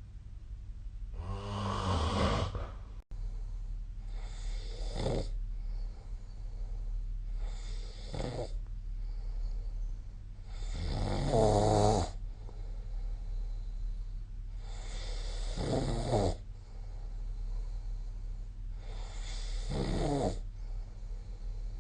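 A sleeping person snoring, six snores at about three- to four-second intervals, each a pitched rasp lasting about a second, over a steady low hum.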